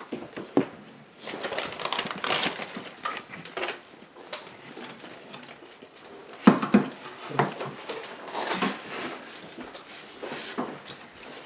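Eating sounds: people chewing burgers, with irregular clicks, knocks and rustling from handling food, packaging and dishes, busiest about two seconds in and again after six seconds.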